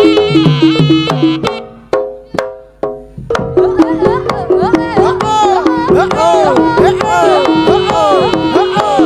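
Live East Javanese jaranan music: a pitched gong part repeating two alternating notes over drum strokes. The music breaks off briefly with a few struck notes ringing away, then comes back in about three seconds in with busy, pitch-bending drumming over the same two-note pattern.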